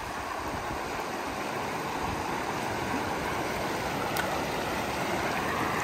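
Shallow river water running steadily over stones and pebbles.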